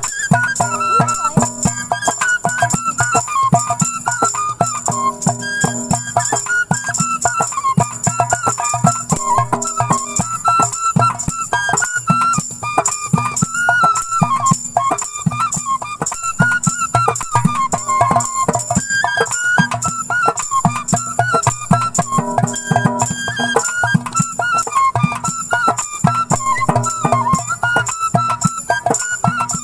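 Bamboo flute (bashi) playing a Bengali folk melody with sliding, ornamented notes, over a quick, steady percussion beat and bass.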